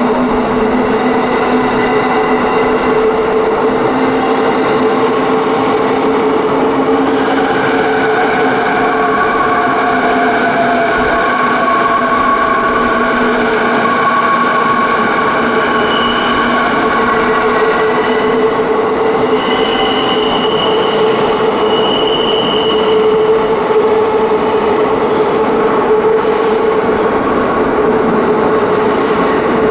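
Electric commuter train running steadily on rails, a continuous loud rumble with several sustained high squealing tones from the wheels that slowly shift in pitch.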